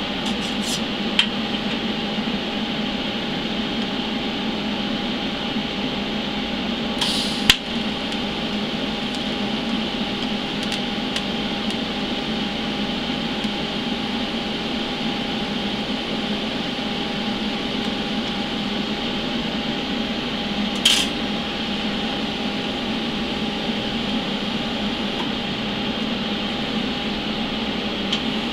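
TIG tacking thin-walled steel tube with an Eastwood TIG200: a steady hum and hiss of the running welder and flowing shielding gas, broken by two short crackles about seven and twenty-one seconds in as the arc is struck.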